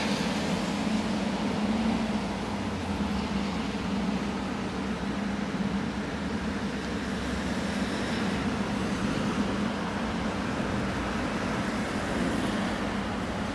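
Steady background noise, a constant low hum under an even hiss, with no clear events.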